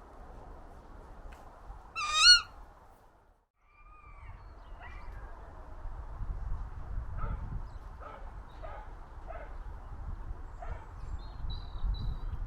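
A bird gives one loud, wavering high call about two seconds in. After a brief drop to silence, a low rumble follows, with several short, fainter calls over it.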